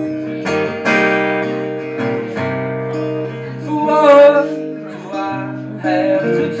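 Live acoustic guitar strumming chords in a folk song. A man's voice sings a short wavering note about four seconds in, the loudest moment.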